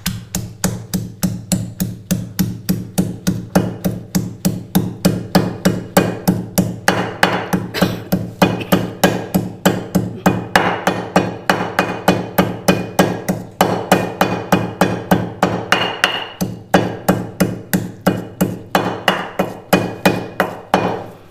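Marble pestle pounding steadily in a heavy marble mortar, stone striking stone at about four strokes a second, crushing a green chilli into a wet paste of ground dried pomegranate seeds and garlic.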